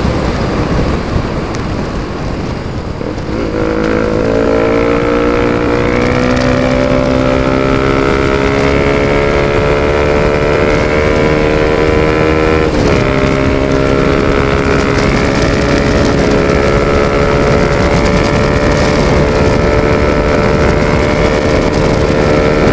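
Bajaj Pulsar RS200's single-cylinder engine through a full-system Akrapovic exhaust with no dB killer fitted, running loud while riding. The engine note climbs slowly from a few seconds in, breaks briefly about 13 seconds in, then holds nearly steady.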